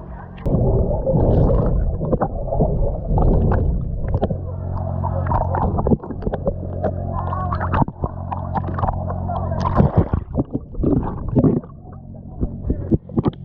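A boat's engine hums steadily underneath loud, jumbled noise with many sharp knocks and clicks.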